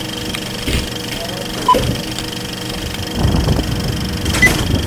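Sound effects of a logo intro: a steady hum, a few knocks, a short beep a little under two seconds in and a higher beep near the end.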